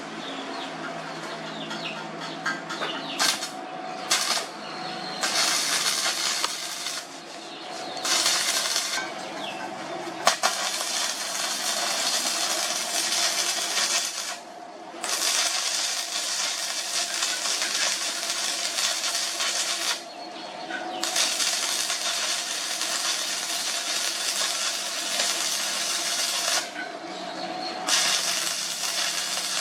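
Electric arc welding on steel: the arc crackling and hissing in several runs of a few seconds each, stopping briefly between beads, over a faint steady hum from the welding machine.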